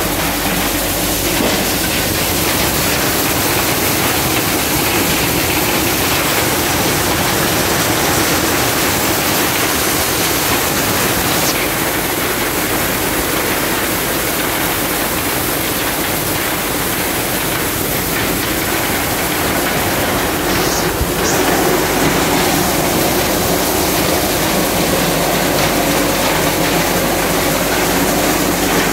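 Multicrop thresher running steadily while shelling maize cobs: a loud, continuous mechanical din from the machine and its grain.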